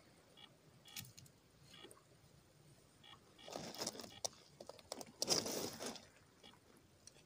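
Dry driftwood kindling and bark being handled and arranged on beach stones: light clicks and knocks, then two louder rustling, scraping rushes a few seconds in.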